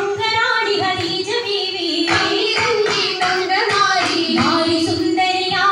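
Oppana song: a sung Mappila-style melody accompanied by steady rhythmic hand-clapping.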